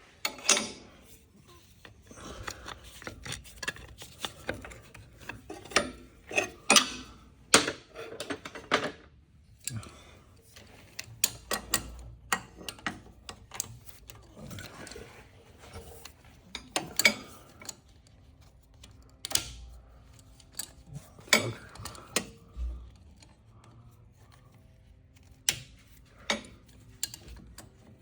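Hand tools clinking and clanking against metal suspension parts, in irregular sharp knocks and clicks, some loud.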